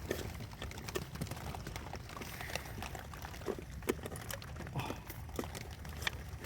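Scattered light clicks and taps of small parts and hand tools being handled, over a steady low rumble.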